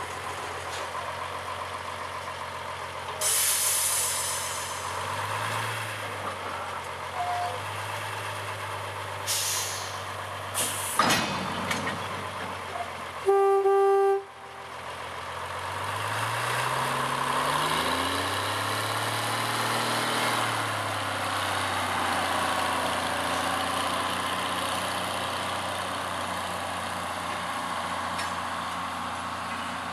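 Small narrow-gauge diesel locomotive running, with short hisses of released air, then one loud horn blast about a second long. Afterwards the engine revs up and eases back as it pulls away, then runs steadily.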